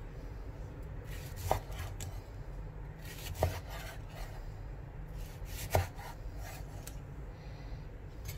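Kitchen knife cutting tomato wedges on a wooden chopping board: three sharp knocks about two seconds apart as the blade goes through and hits the board, with faint slicing and scraping between them.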